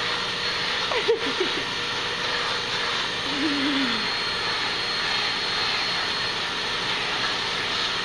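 Vacuum cleaner running steadily, a rushing of air with a constant whine, as its hose brush attachment is drawn over a dog's coat. There is a single click about a second in.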